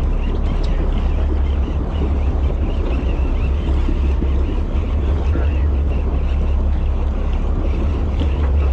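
Steady low rumble of wind buffeting the microphone on a fishing boat at sea, with an even hiss of sea noise over it.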